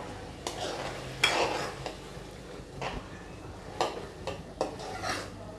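Metal ladle stirring and scraping around a metal kadai of Manchurian gravy, with irregular clinks against the pan; the loudest comes a little over a second in. The gravy is being thickened with cornflour slurry.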